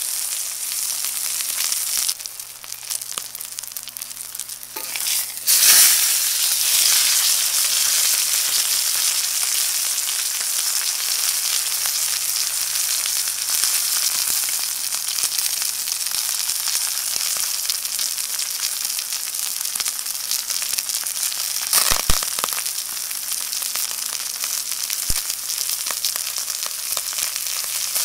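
Ribeye steak frying in a hot pan: a steady sizzle with dense crackling of spitting fat. The sizzle is softer for the first few seconds, jumps up sharply about five seconds in, and a single sharp knock stands out about three quarters of the way through.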